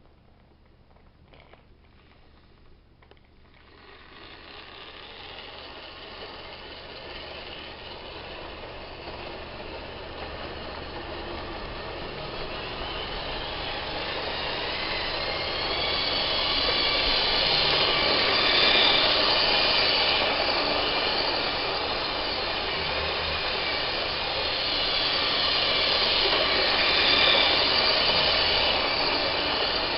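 Lima O gauge model train (a Class 33 diesel locomotive with coaches) running on sectional track: the rumble of wheels on rails and the hum of the electric motor, starting faint and growing steadily louder as the train approaches, loudest as it passes close by about two-thirds of the way in and again near the end.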